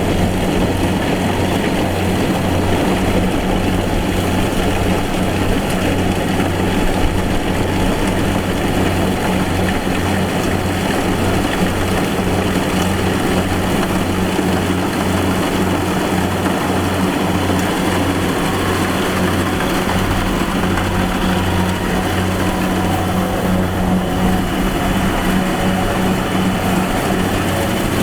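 Combine harvester's engine running steadily under load, a constant low hum with the noise of the machine working.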